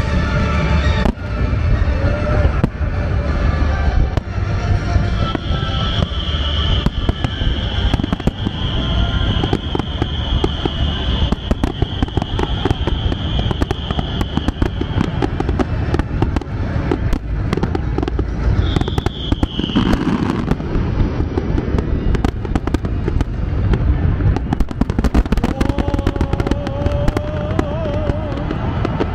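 Fireworks grand finale: a dense barrage of shell bursts and crackle, many reports a second. A long high whistle runs through the middle.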